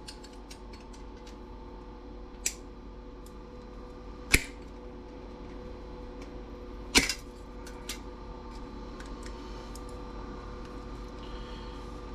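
Hand tools clicking and tapping on small brass and steel parts being worked off a scrapped CRT TV: three sharp clicks a couple of seconds apart among fainter ticks, over a steady low hum.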